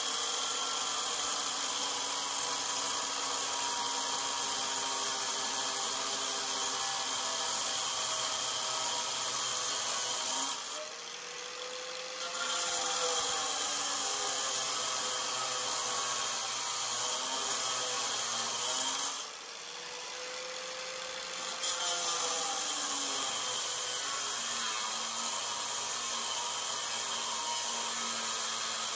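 Electric angle grinder cutting into steel, a steady loud grinding hiss with sparks flying. The cutting sound drops away twice for about two seconds, about ten and nineteen seconds in, with the motor note bending up and down before it bites in again.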